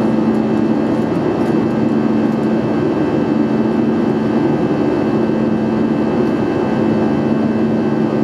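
Steady jet engine and airflow noise heard inside the cabin of an Airbus A320 in flight: a constant drone with a low, even hum.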